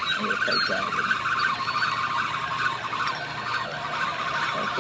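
Steady, dense chirring of an evening insect chorus, holding one even pitch throughout.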